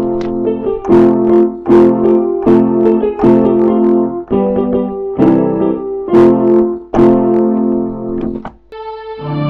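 Background piano music: chords struck about once a second. Near the end the piano stops and a different, held ambient piece begins.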